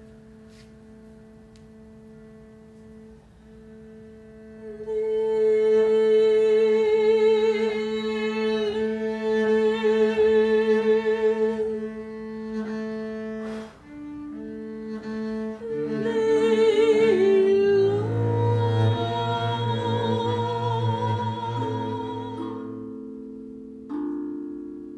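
Double bass played with a bow: long sustained notes with vibrato over steady lower held tones. It starts soft and swells much louder about five seconds in.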